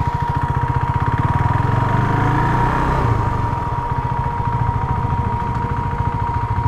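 Motorcycle engine running at a steady cruise as the bike rides along, with a fast, even beat of firing pulses. A thin steady high-pitched whine sits alongside it.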